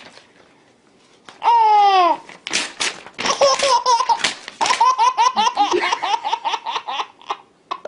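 Baby laughing. After a quiet first second comes one squeal falling in pitch, then long chains of quick belly laughs that run to near the end. A sheet of paper tearing comes just before the laughter takes off, about two and a half seconds in.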